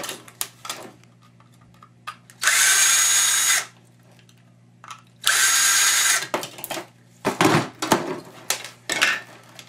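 Cordless drill/driver run twice, about a second each time, with a steady whine, backing screws out of the humidifier's parts. A few clicks and knocks of parts being handled follow near the end.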